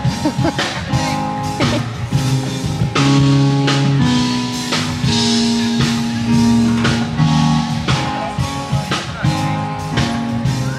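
Music with a steady drum beat under held instrument notes.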